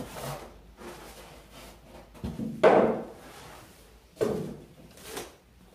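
Packing being handled: plastic wrap rustling and styrofoam and cardboard scraping and knocking as a TV is drawn out of its box. It comes in several short bursts, the loudest about two and a half seconds in.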